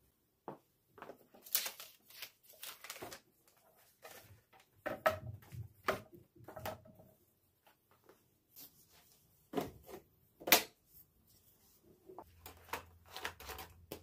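Household objects being handled: irregular light knocks, clicks and rustles, the loudest knock about ten and a half seconds in. A faint low hum comes in near the end.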